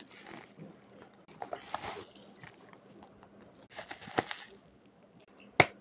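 Plastic bubble wrap crinkling in bursts as fingers handle and press it, with a single sharp, loud snap near the end.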